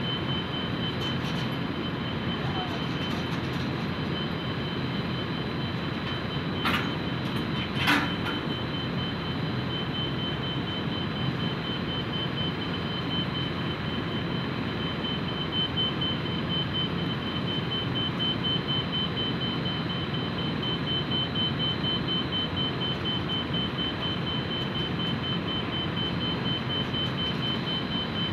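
Steady machinery running with a thin high whine as a forklift on a chain drum lifter lowers a filled steel oil drum onto a truck bed. Two sharp metal clanks come about seven and eight seconds in as the drum lands.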